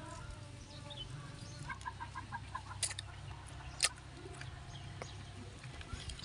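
A hen clucking: a quick run of about seven clucks a couple of seconds in. Two sharp clicks about a second apart follow.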